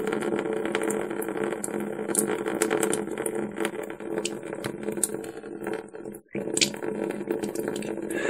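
Saline from a NeilMed sinus rinse bottle draining out of a nostril in a thin stream, trickling with small drips and splashes, over a steady low hum. The sound drops out briefly about six seconds in.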